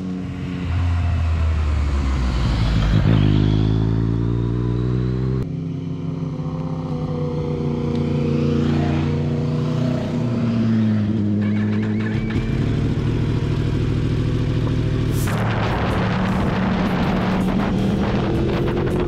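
Sport motorcycle engine accelerating, its pitch rising and falling as the revs build and drop through the gears, with an abrupt change about five and a half seconds in. Wind rushes over the microphone from about fifteen seconds in.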